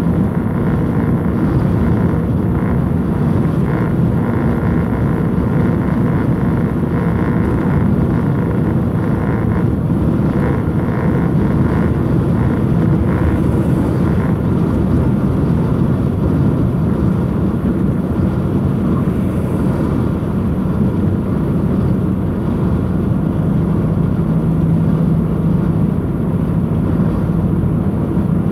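Truck engine and road noise heard from inside the cab while driving at a steady speed: a constant low drone.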